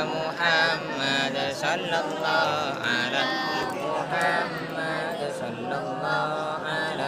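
Voices chanting Islamic dhikr, a melodic recitation whose pitch rises and falls without a break.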